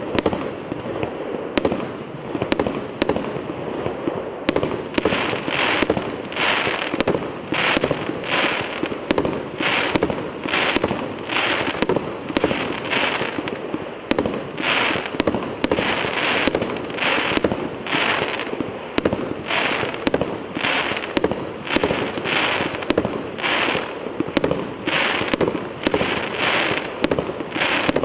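A C142 'Pyatigorsk' 150-shot firework cake firing a steady rapid volley, about two shots a second, each launch followed by the pop of the bursting shell. From about five seconds in, most bursts end in a crackle.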